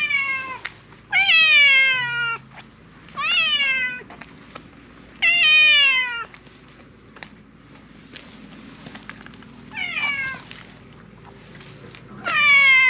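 Silver tabby cat meowing loudly and insistently, asking for something. There are six long meows, most of them about a second long, each rising and then sliding down in pitch. Four come close together, then a pause of a few seconds, then two more.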